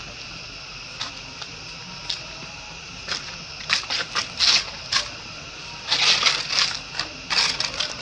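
Dry leaf crackling and rustling in short clustered bursts as a young monkey grabs it and carries it, after a few light clicks.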